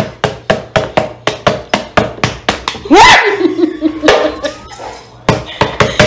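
Rapid, evenly spaced knocking, about four knocks a second. About three seconds in it is broken by a woman's excited shriek that rises and is held for about a second, and the knocking resumes near the end.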